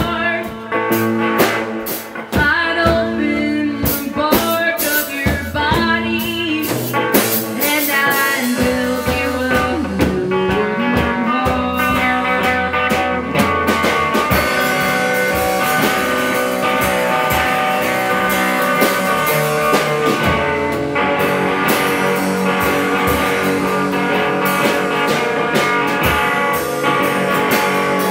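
Alt-country band playing an original song: guitars over a drum kit keeping a steady beat.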